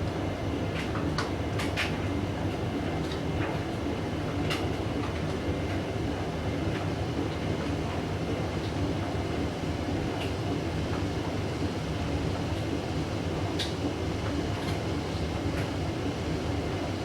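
Hoover Vision washing machine drum turning on its final spin, a steady rumble with a few sharp clicks, struggling to build up spin speed. The owner puts the failed spin down to an unbalanced blanket load.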